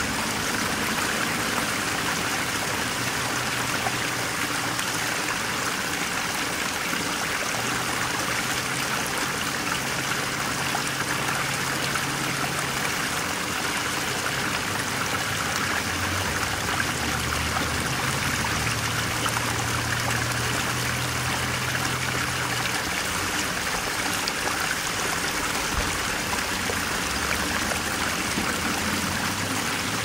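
Steady rushing of a running stream, an even water hiss with no breaks, with a faint low hum coming and going underneath.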